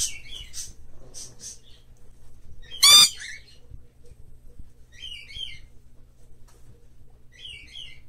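Green-cheeked conure calling: one loud, harsh squawk about three seconds in, with short paired chirps and scratchy high noises before and after it.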